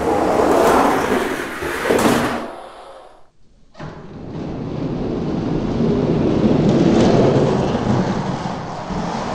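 Diecast toy monster trucks rolling down a plastic Hot Wheels track: a rattling rumble that breaks off about three seconds in and then builds again, loudest near the end.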